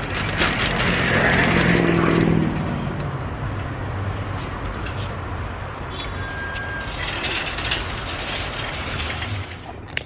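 Parking-lot traffic: a vehicle's engine passes close in the first few seconds, its pitch falling, over a steady hum of traffic. Plastic grocery bags rustle as they are loaded into the car's cargo area.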